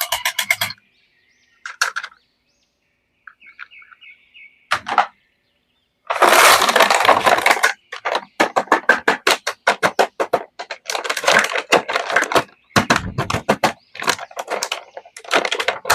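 Plastic toy packaging crackling and clicking as it is handled and opened, in bursts of rapid crackles with short silent gaps.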